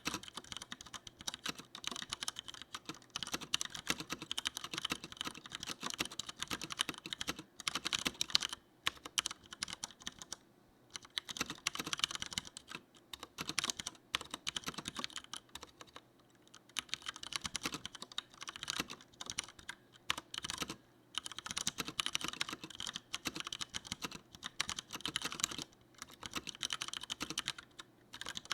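Continuous typing on a Leopold FC900R mechanical keyboard with tactile Cherry MX Brown switches: a rapid, uneven run of key presses, broken by brief pauses every few seconds.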